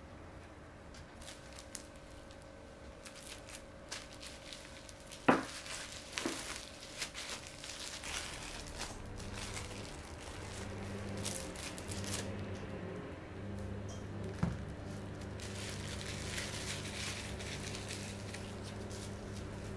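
Plastic cling film crinkling and crackling as it is wrapped around a block of scone dough, with one sharp tap about five seconds in. A low steady hum comes in about halfway through.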